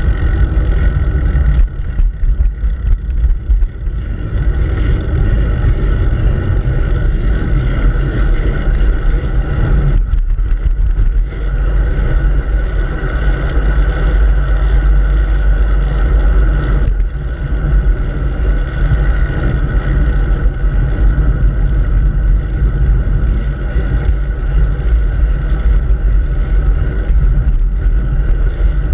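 Wind buffeting and road vibration picked up by a camera mounted on a moving bicycle's handlebars: a loud, steady low rumble with a constant hiss over it.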